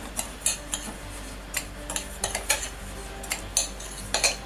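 Metal spoon and cutlery clinking and knocking against dishes and pans: about ten sharp, irregular clinks, over a low steady hum.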